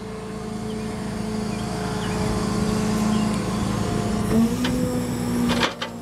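Flatbed tow truck's hydraulic bed drive running as the bed is brought back into place: a steady mechanical drone that steps up in pitch a little past halfway, then cuts off with a clunk near the end.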